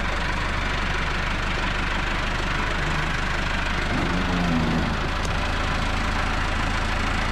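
Massey Ferguson 385 tractor's four-cylinder diesel engine running steadily at low revs while the tractor creeps forward over wooden planks.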